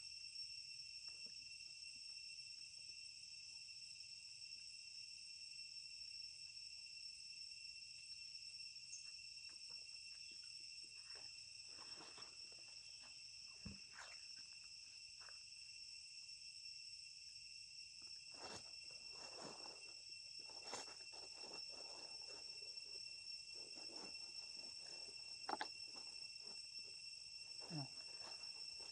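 Insects chirring in a steady high drone, with scattered short rustles and knocks in the middle and near the end.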